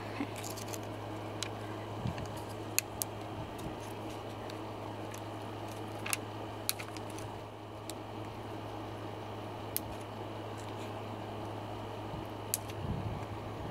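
Scattered small clicks and taps from hands handling small craft pieces while decorating a picture frame, over a steady low hum and background hiss.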